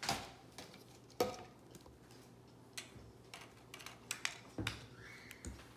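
Scattered light knocks and clicks of plastic cups and tableware being handled on a table.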